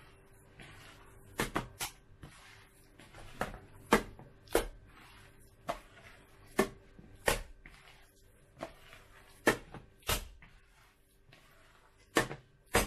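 Ground-chicken siomay dough being lifted and slammed back down into a plastic bowl, about fourteen sharp wet slaps, roughly one a second with some in quick pairs. The dough is beaten this way to make the meat springy.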